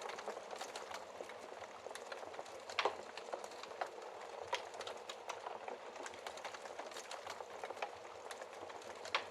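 Wood fire burning in a fireplace: a steady crackle with many small snaps and a few louder pops, the loudest about three seconds in and just before the end.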